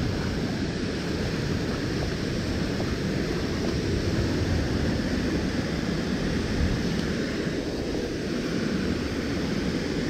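Steady rush of a creek and a nearby waterfall, heard through a waterproofed GoPro.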